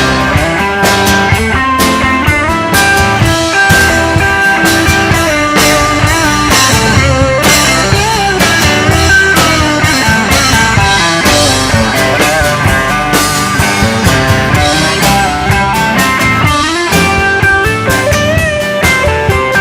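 A live band plays an instrumental break between sung verses: lead guitar with bending, sliding notes over a steady drum beat.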